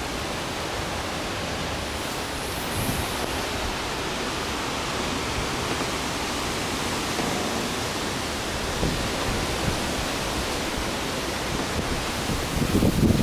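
Strong gusty wind from an approaching hurricane rushing through the backyard trees in a steady, even noise, with a few low thumps near the end.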